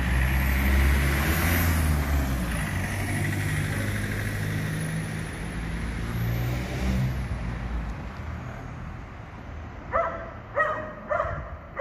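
Cars driving past on the street, engine and tyre noise that fades away. Near the end a dog barks four times in quick succession, about half a second apart.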